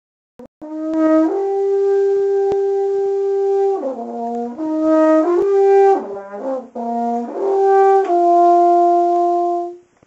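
French horn played solo: a long held note, a run of shorter notes stepping up and down, then another long held note that stops just before the end.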